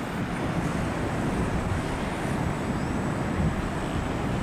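Airbus A330-900neo airliner's Rolls-Royce Trent 7000 jet engines making a steady low rumble as the plane touches down and rolls along the runway.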